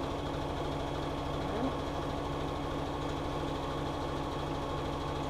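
Sewing machine running at a steady speed, stitching a straight seam through polar fleece with a fast, even needle rhythm.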